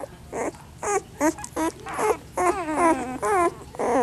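Young puppies whining and squealing in a run of short, high cries, with one longer wavering cry about two and a half seconds in.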